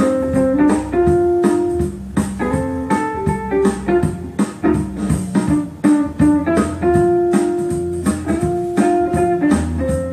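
Instrumental music played back through B&W CM9 hi-fi loudspeakers driven by an Accuphase E-206 amplifier and picked up in the room: plucked guitar and keyboard notes over a steady bass line.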